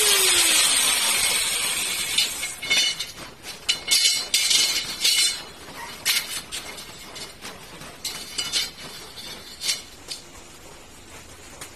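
Angle grinder spinning down after cutting steel bars: its whine falls in pitch over the first second, and a hiss lingers for about two seconds. Then the steel bars clink and clatter as they are handled, a scatter of sharp metallic knocks that thins out near the end.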